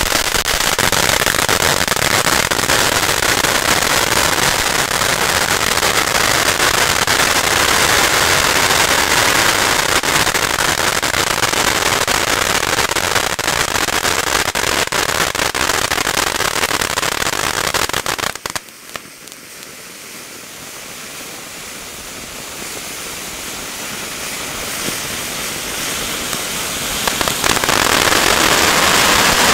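Two ground fireworks fountains burning side by side, giving a loud, dense crackling hiss of sparks. About two-thirds of the way through the sound drops off suddenly, then builds back up and is loud again near the end.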